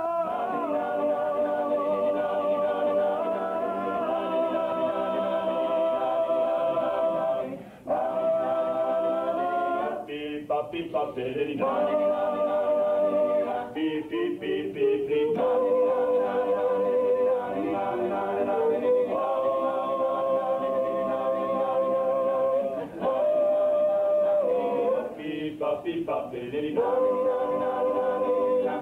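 Male a cappella vocal group singing 1950s-style harmony, holding long chords of several seconds with short breaks and sliding up in pitch between phrases.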